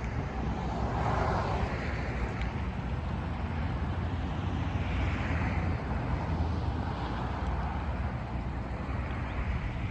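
Road vehicle noise: a steady low rumble with a hiss that swells and fades a few times.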